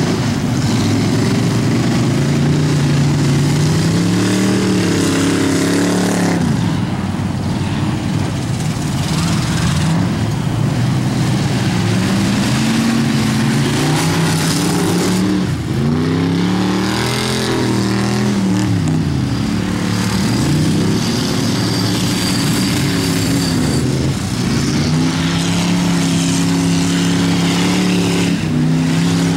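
Engines of rear-wheel-drive race cars running hard on an ice track, the pitch rising and falling every few seconds as the drivers rev up and lift off, with stretches held at steady revs.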